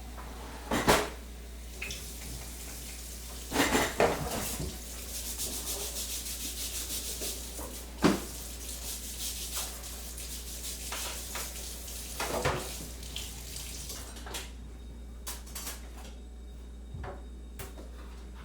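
Crockery and cutlery being handled: a few sharp clatters with lighter clinks and rubbing between them, growing sparser and fainter over the last few seconds.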